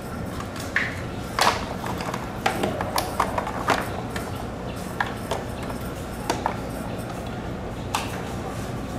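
About a dozen irregular sharp clicks and knocks, as of hard objects being handled, the loudest about a second and a half in, over a steady low hum.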